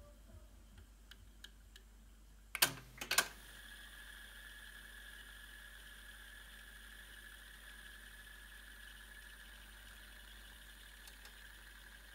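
Cassette deck transport mechanism: a few faint ticks, then two loud mechanical clunks close together about two and a half seconds in as a key is worked, followed by a faint steady hiss with a thin high whine as the deck runs, its belts newly replaced.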